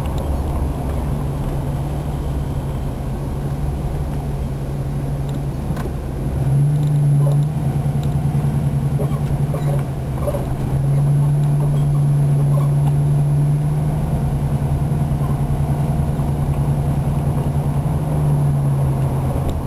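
Car engine hum and road noise heard from inside the cabin while driving slowly. The engine note picks up about six seconds in, dips briefly near ten seconds, then eases again near the end.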